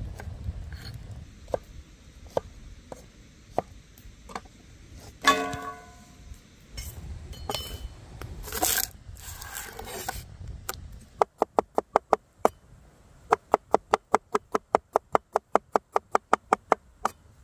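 Cooking-utensil sounds: scattered clicks and a ringing metal clink, then a long run of quick, even knocks, about five a second, with a short break partway.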